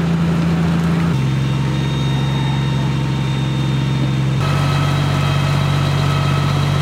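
Fire engine's diesel engine running at a steady speed, a constant low hum that shifts pitch abruptly about a second in and again past the middle.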